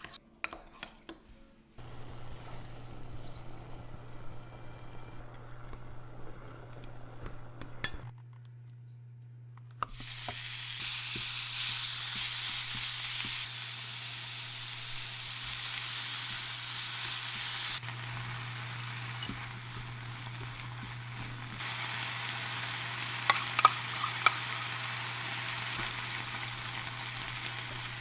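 Food sizzling in a frying pan while it is stirred, in several stretches that start and stop abruptly, over a steady low hum. There are a few sharp taps about three-quarters of the way through.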